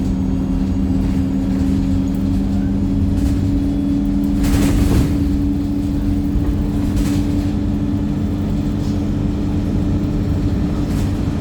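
Wright StreetLite single-deck bus running at speed: a steady low rumble with a steady two-note whine over it. A short hiss cuts in about four and a half seconds in, with fainter ones later.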